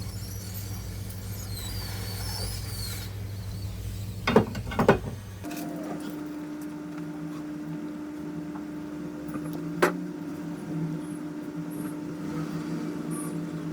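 A steady electrical hum from repair-bench equipment, with a cluster of sharp clicks about four to five seconds in. After the clicks the hum shifts to a single higher, steadier tone, and there is one more click near ten seconds.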